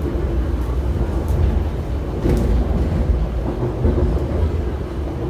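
MTR Tuen Ma Line IKK train running between stations, heard from inside the car: a steady low rumble of wheels on rail with a faint hum over it, and a sharp click about two seconds in.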